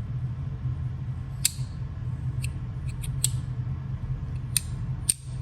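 Magnus Starfish fidget slider worked by hand in its groove, giving a handful of sharp haptic clicks at uneven intervals as it is pushed and spun, over a steady low hum.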